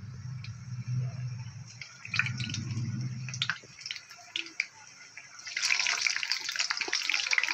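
Samosas deep-frying in hot oil in an iron kadai: scattered crackling and popping that swells into a dense, loud sizzle about five and a half seconds in.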